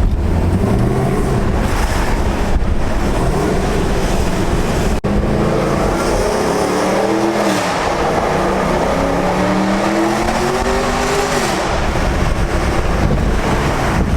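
Straight-piped Chevrolet SS (Holden Commodore) V8 exhaust running under acceleration. The engine note climbs in pitch and drops off twice, in the middle and near the end.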